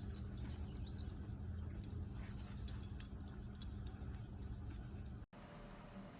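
A dog's metal collar tags jingle faintly and irregularly, with one sharper clink about three seconds in, over a low steady hum. The sound cuts off abruptly a little over five seconds in.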